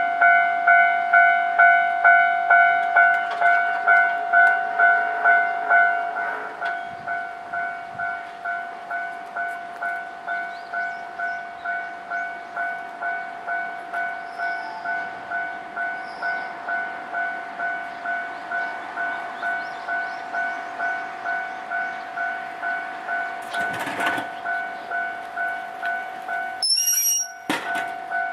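Japanese railway level-crossing warning bell ringing 'kan-kan' steadily, a little under two strokes a second, louder for the first six seconds and then quieter as some of its tones drop out. It signals the barriers down for passing trains, heard running by underneath it. A short high-pitched tone sounds near the end.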